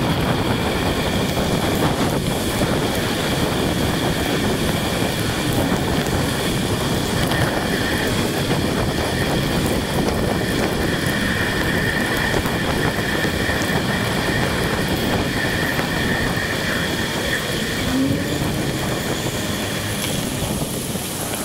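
Steady rushing noise of wind and wet road from a bicycle-mounted camera riding through rain, with a faint steady high whine running through it.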